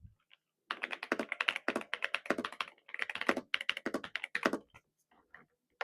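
Typing on an Onikuma 75% gasket-mount mechanical keyboard with factory-lubed hot-swappable switches, PBT keycaps and sound-dampening padding: a fast run of keystrokes starting about a second in, thinning to a few stray clicks near the end.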